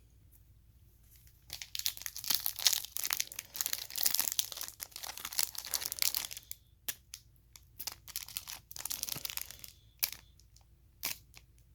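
A foil trading-card pack being torn open and crinkled by hand: a dense crackling rustle starting about a second and a half in and lasting some five seconds, then scattered crinkles and clicks.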